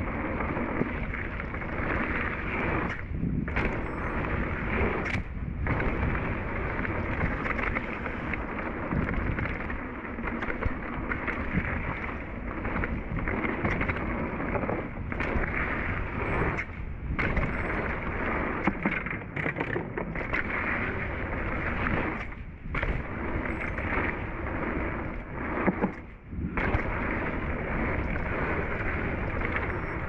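Wind rushing over the camera microphone and mountain-bike tyres rolling fast over a dirt trail and wooden berm, a steady rushing noise that dips briefly several times.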